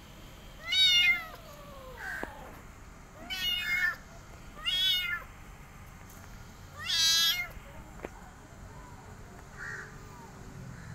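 Young tabby kitten meowing: four high calls spaced a second or two apart, the first sliding down in pitch, then a few fainter meows near the end.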